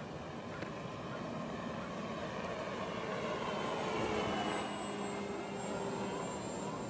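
E-flite Carbon-Z T-28 electric scale RC plane flying past, its brushless motor and propeller whining. The sound swells to its loudest about four seconds in, then drops slightly in pitch and fades as the plane goes by.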